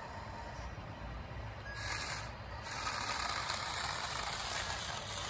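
Small geared electric motors of an RC toy construction vehicle whirring and grinding. The noise starts about two seconds in and gets louder a second later.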